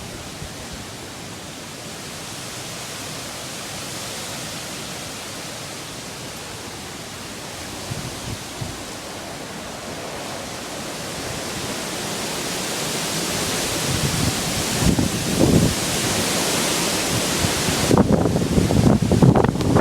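Hurricane Sandy's gale-force wind rushing steadily, building to stronger gusts in the last several seconds, with gusts buffeting the microphone near the end.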